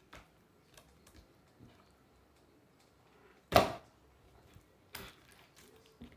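Homemade glue slime being squeezed and worked, with small sticky clicks throughout. There is a loud pop about three and a half seconds in and a smaller one about five seconds in, as trapped air bubbles burst.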